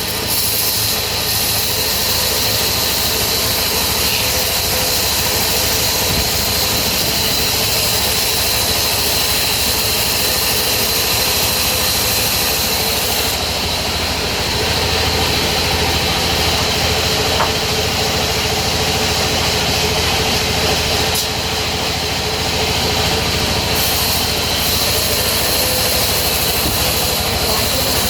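Sawmill saw machinery running steadily: a constant loud machine noise with a thin, steady high whine over it.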